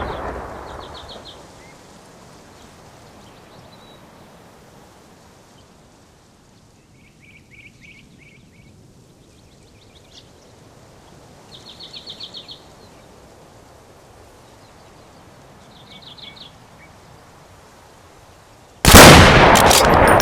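Songbird singing short, rapid trills, each a quick string of notes, a few seconds apart over a faint steady hiss. A loud burst of noise fades away at the start, and another breaks in suddenly near the end and is the loudest sound.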